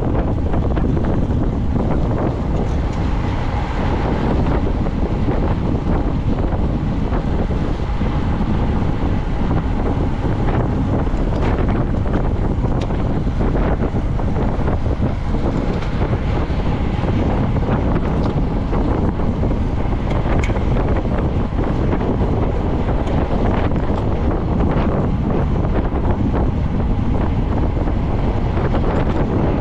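Steady, loud wind buffeting on the microphone, heaviest as a low rumble, from riding a bicycle at racing speed.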